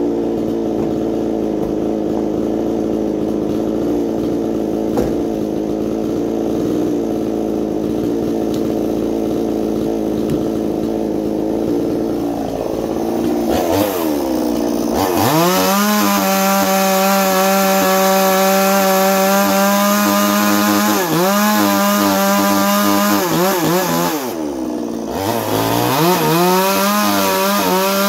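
Ported Chinese 45cc two-stroke chainsaw idling steadily, then revved up about 13 seconds in to a high, steady full-throttle run. The revs dip briefly about 21 seconds in, drop off near 24 seconds, and climb back up again near the end.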